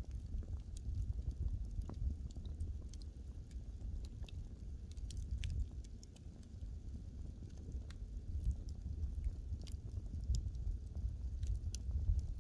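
Wood fire burning: irregular sharp crackles and pops of burning wood over a steady low rumble.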